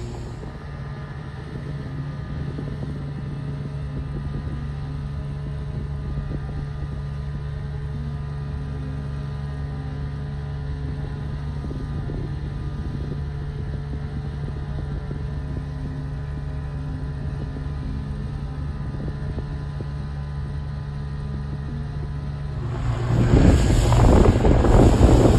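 Speedboat engine running steadily under way, a low even hum. About 23 seconds in, loud wind on the microphone and water rushing past the hull take over.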